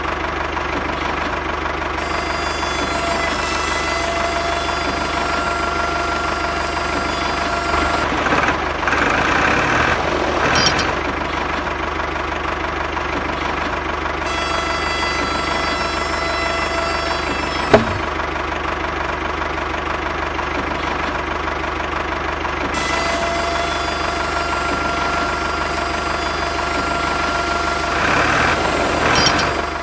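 Tractor engine idling steadily with a knocking beat, growing louder and rougher twice: about eight seconds in and again near the end. A single sharp click sounds at about eighteen seconds.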